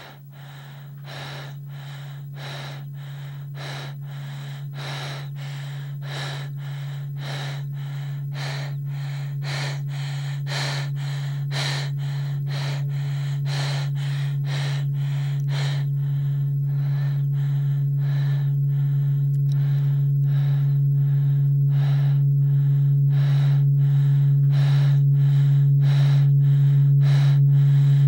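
A person's rapid, rhythmic breathing, about two breaths a second, over a low steady hum; the whole sound grows steadily louder.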